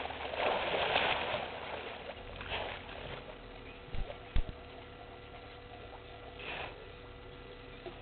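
Hippos splashing in the water, loudest in the first second and a half, with a couple of shorter splashes later. Two low thumps come about four seconds in; the second is the loudest sound.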